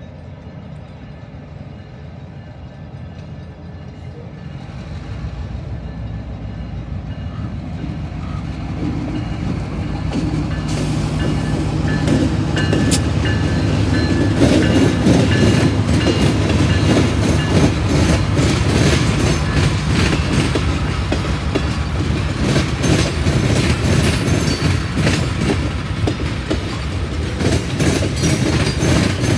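EMD GP38-2 diesel-electric locomotive, with a 16-cylinder two-stroke engine, approaching and passing. The engine grows steadily louder over the first dozen seconds and is loudest as the locomotive goes by. The tank cars behind it then roll past with wheels clicking over the rail joints.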